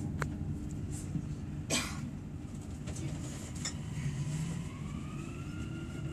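Dubai Metro train running, heard from inside the carriage: a steady low rumble with a few sharp clicks, and from about four seconds in a motor whine that rises in pitch and then holds steady as the train gathers speed.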